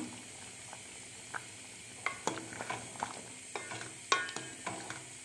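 A spoon stirring simmering tamarind gravy in a pan, with repeated scrapes and clinks against the pan starting about two seconds in, over a low steady simmering hiss, as salt is mixed in.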